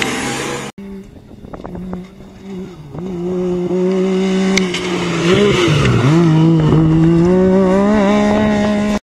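Yamaha side-by-side's engine revving hard as it comes through a gravel corner. The revs drop sharply and briefly about halfway through, then climb again and hold high. Before that, under a second in, the sound of another rally car's engine cuts off abruptly.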